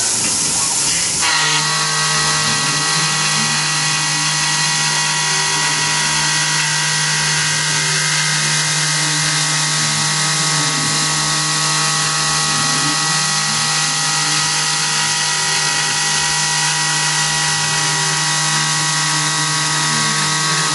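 Tormach PCNC 1100 CNC mill cutting a metal part under flood coolant during a roughing pass: a steady hiss of coolant spray over the steady whine of the spindle and cutter. A low tone rises and falls every couple of seconds as the tool works around the part. About a second in, the whine and hiss step up.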